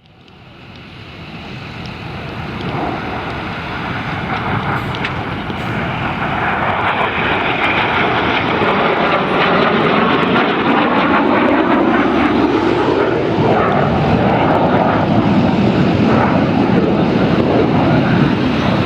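Jet roar of Alpha Jet trainers' turbofan engines, growing louder over the first several seconds, then holding loud and steady.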